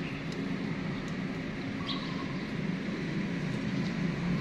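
Steady low background rumble, with a couple of faint short chirps.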